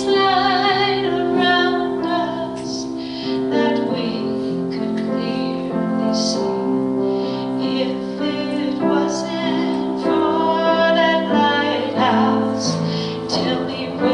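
A woman singing a slow song with piano accompaniment.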